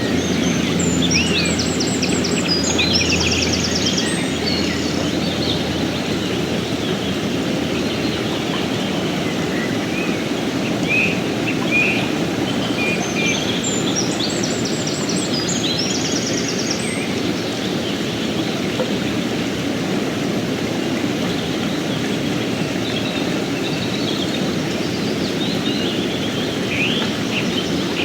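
Mountain stream rushing steadily, with songbirds singing over it in short chirping and trilling phrases near the start, in the middle and near the end.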